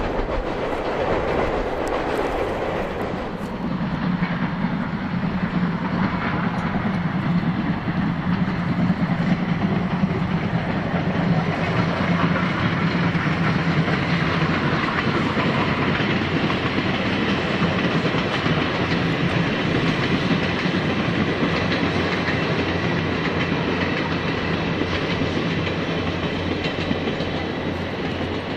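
Japanese steam locomotive C57 180 hauling a passenger train past while working hard. Its coaches then roll by, with the wheels clicking over the rail joints.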